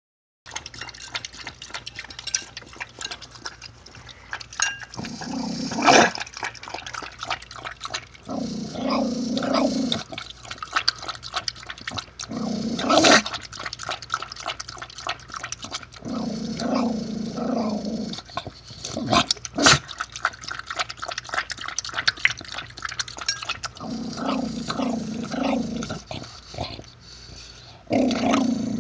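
Dog lapping liquid from a ceramic dish: quick wet lapping clicks, with a few sharper knocks against the dish. A low rumble lasting a second or two comes every few seconds.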